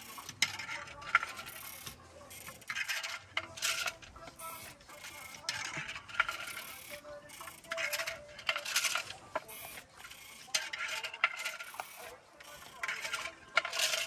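Hand-operated pit loom being worked: repeated clattering and rattling of its wooden beater and reed as the weaver beats in the weft, in short strokes about every one to two seconds.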